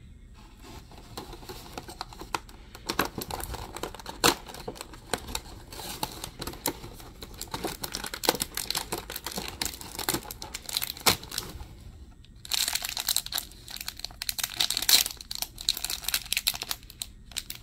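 A cardboard blind box being opened and the foil blind bag inside pulled out and torn open: scattered crackles and clicks, then denser crinkling and tearing of the foil in the last few seconds.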